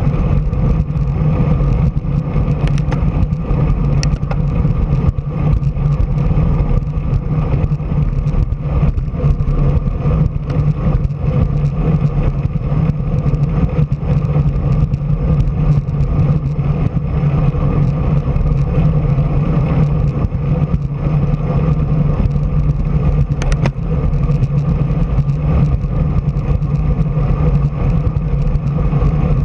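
Steady road and wind noise from travel along a street, with a constant low hum running under it and a few faint clicks.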